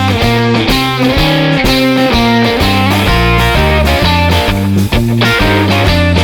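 Rock music with guitar over a steady, rhythmic bass line.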